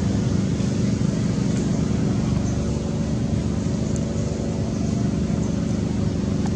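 A steady low motor drone with several even hum tones that holds at the same level, with no change in pitch or rhythm.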